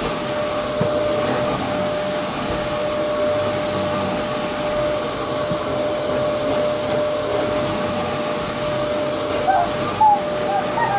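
Upright vacuum cleaner running steadily, with a constant motor whine, as it is pushed back and forth over carpet. A few short higher sounds come near the end.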